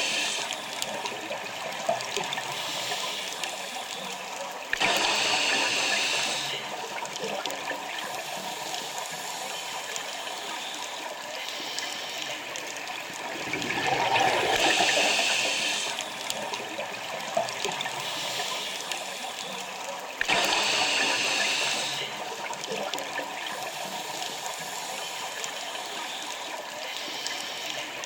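A scuba diver breathing underwater through a regulator: a surge of bubbles and hiss comes every seven or eight seconds over a steady watery background.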